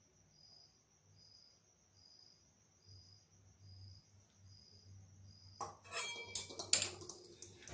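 Faint, regular chirping about twice a second over a low hum, then, near the end, a quick run of sharp clinks and knocks of stainless-steel kitchenware, one with a brief metallic ring.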